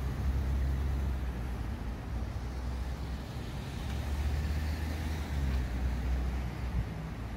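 Outdoor street ambience: a steady low rumble with an even hiss over it, cutting in suddenly at the start.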